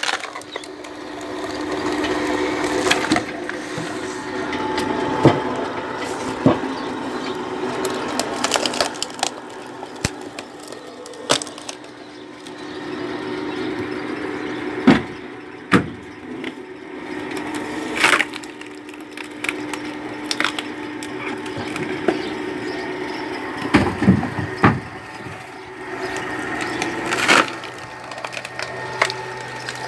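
Screw-cone log splitter, its electric motor humming steadily while the spinning threaded cone bores into pine blocks and splits them, with sharp cracks and splintering of wood every few seconds.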